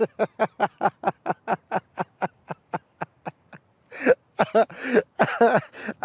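A man laughing: a long, fast run of short breathy "ha" bursts, about five a second, each falling in pitch, then a brief pause and a few louder bursts of laughter near the end.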